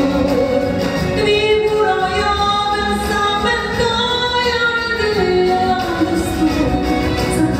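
A woman singing a song in Norwegian into a microphone, over instrumental accompaniment, in long held notes that bend in pitch.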